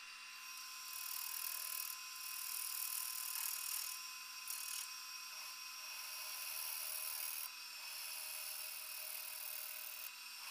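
Gouge cutting the end face of a spalted maple blank spinning on a wood lathe: a steady hiss of shavings over a faint steady hum. The cut starts about a second in and breaks off briefly a few times.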